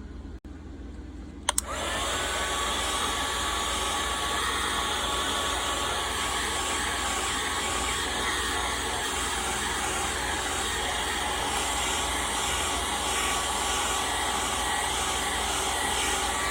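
Handheld hot-air blower switched on with a click about a second and a half in, then running steadily with a whirring hum, heating the glued edges of a phone's back glass to soften the adhesive. It cuts off at the very end.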